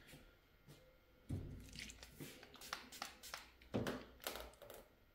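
A series of light, irregular taps and clicks as a hand works a plastic glue-pulling tab loose from a car body panel.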